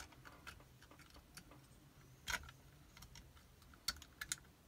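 Faint scattered clicks and taps of small brass lock parts and a metal pick as a lever is worked loose and lifted out of a disassembled safety deposit box lever lock. One louder click comes a little over two seconds in, and a quick run of three clicks near the end.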